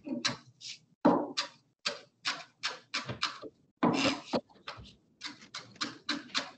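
Chef's knife chopping rapidly on a cutting board while mincing jalapeño fine, a quick string of sharp knocks at about three to four a second.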